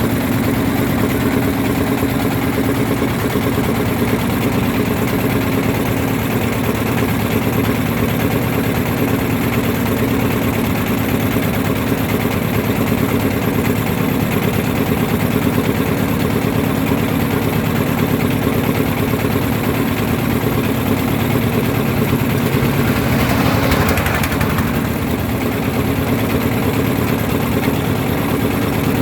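Boat engine running steadily, with a brief rush of noise about 23 seconds in.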